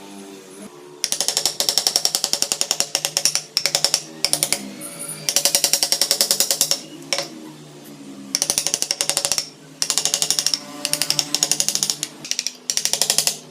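Rapid, evenly spaced tapping of a chisel cutting into wood, in bursts of about one to two seconds with short pauses between them.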